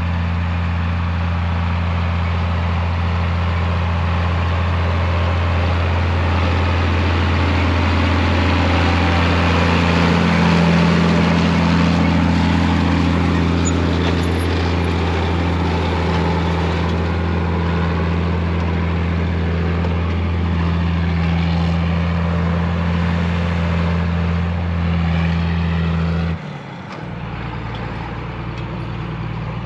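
John Deere 4960 tractor's six-cylinder diesel engine running at a steady, even speed while pulling a planter. About 26 seconds in the sound cuts off abruptly, and a quieter, different engine sound follows.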